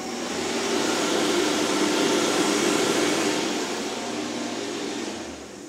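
Bobrick Eclipse electric hand dryer running: a loud rush of air over a steady motor hum, starting abruptly and dying away over the last couple of seconds.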